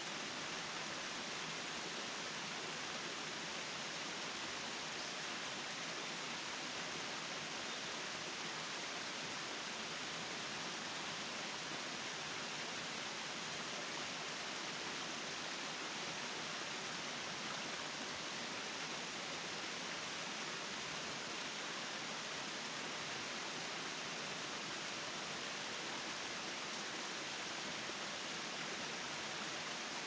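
Steady, even rush of falling water from Kiyomizu Falls (Tamasudare Falls), a narrow waterfall down a wooded cliff.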